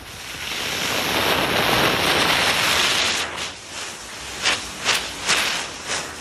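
Homemade sugar rocket motor in a 3D-printed casing firing: a loud rushing hiss builds over about a second and holds, then after about three seconds turns uneven and sputters with several sharp pops as it burns down.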